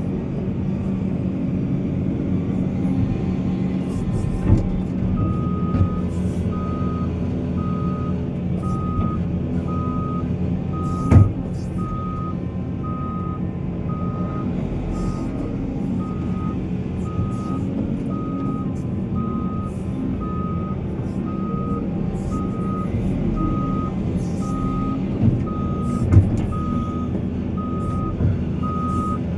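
Heavy diesel mining machinery running steadily, with a backup alarm on a reversing machine starting about five seconds in and beeping at a steady pace, a little more than once a second. A sharp clank about eleven seconds in is the loudest sound, with a few fainter knocks.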